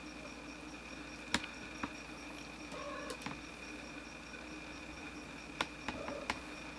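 A three-week-old kitten gives a faint, short mew about three seconds in, over a steady hum, with a few sharp clicks scattered through.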